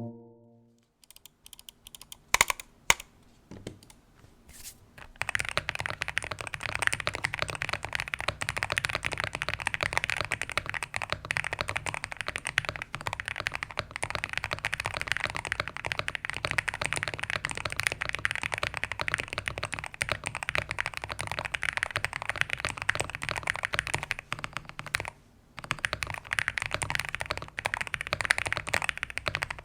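Typing on a Zuoya GMK67 mechanical keyboard with KTT Kang White V3 linear switches: a few separate keystrokes at first, then fast continuous typing from about five seconds in, pausing briefly near the end before going on.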